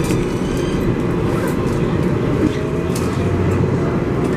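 R188 subway car running, heard from inside the car: a steady low rumble of wheels on rail with scattered sharp clicks and a faint thin whine in the second half.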